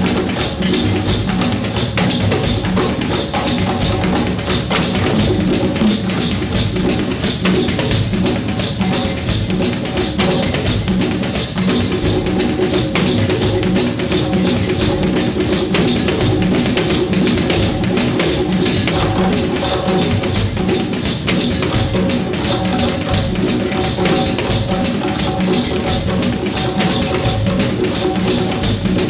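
Live drums and percussion playing a steady, driving rhythm in Haitian Yanvalou style, with held tones from other instruments underneath.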